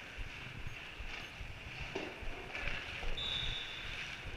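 Indoor ice rink ambience: distant skates scraping on the ice, echoing through the hall, over uneven rumble on the camera's microphone. A thin steady high tone sounds for about a second, starting about three seconds in.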